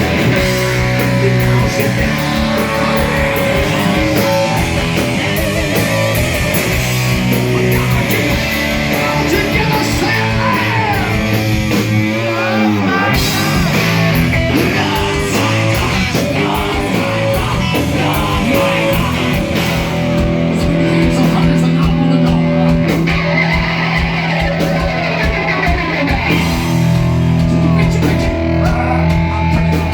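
Hard rock band playing, with distorted electric guitar, drums and singing.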